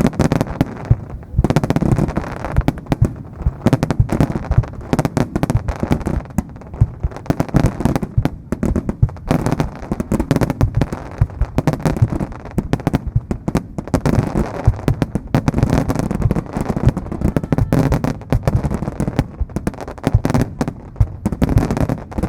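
Starmine fireworks: aerial shells fired in rapid succession, their booms coming many times a second and overlapping into an unbroken barrage.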